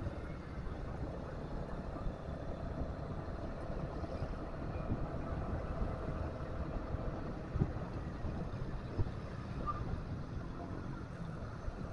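Riding noise in motorbike traffic: small motorcycle engines hum steadily under a low rumble of wind on the microphone. Two short thumps come about two-thirds of the way through.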